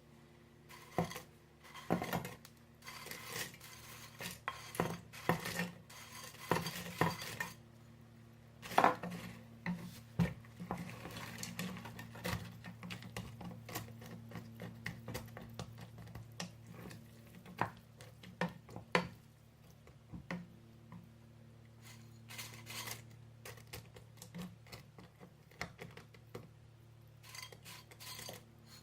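Metal spoon scraping and clinking against a cooking pot in irregular knocks and scrapes, as dried injera pieces are stirred into a thick berbere sauce.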